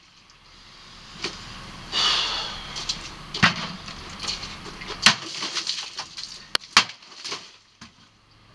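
Cold Steel Heavy Machete chopping into water-filled plastic gallon jugs: several sharp whacks, the loudest about five seconds in and just before seven seconds. Between the strikes there is rustling and knocking of plastic jugs being handled and set down.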